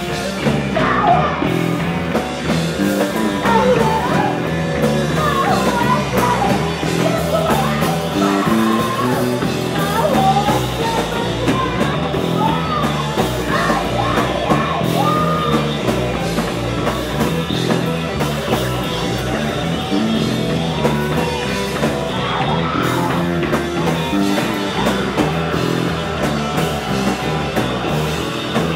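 Live hard rock band playing at full volume: electric guitar, bass and drums. Singing and shouting run over roughly the first half, then the band carries on with little or no voice.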